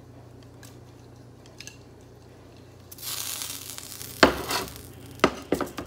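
Potato wedges in sriracha sauce start sizzling suddenly about halfway through, as the frying pan goes back onto the hot burner. A utensil then knocks and scrapes against the pan a few times while the potatoes are stirred, the first knock the loudest.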